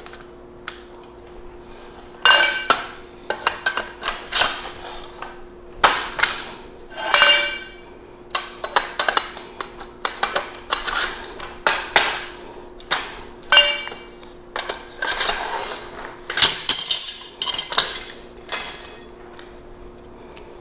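Steel rail sections of a Genie belt-drive garage door opener being slid and snapped together, with irregular metal clanks, rattles and short scrapes, some ringing briefly.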